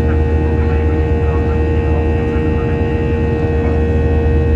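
Boeing 737-800's CFM56 jet engines at climb power, heard inside the cabin: a loud, steady drone with a low hum and a constant mid-pitched whine over it.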